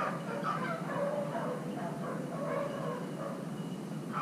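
Pack of beagles baying as they run a rabbit's track, several voices overlapping in a continuous chorus of howling cries.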